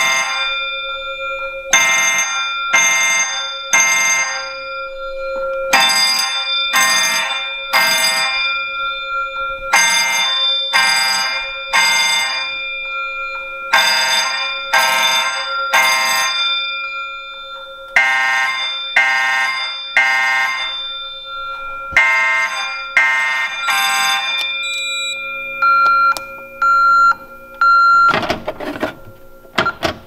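Simplex fire alarm horns sounding the code-3 temporal pattern, the general alarm set off by the pulled glass-rod pull station: six groups of three blasts, a group every four seconds, over a steady tone. The horns stop a few seconds before the end, followed by a few short high beeps.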